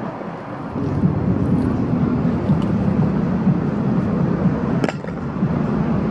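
Road traffic: cars passing close by, a steady rumble of engines and tyres on the road that swells about a second in. A short sharp tick sounds about five seconds in.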